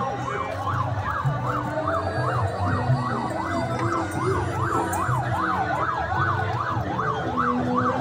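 Electronic siren sounding a rapid yelp, its pitch sweeping up and down about three times a second without a break, over a low rumble.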